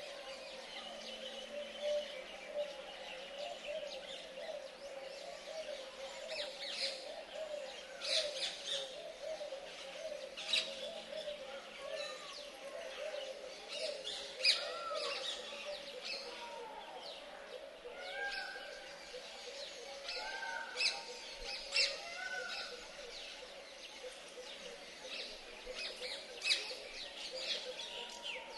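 Birds chirping and calling: many short, quick chirps with a few arching calls, over a steady warbling lower tone.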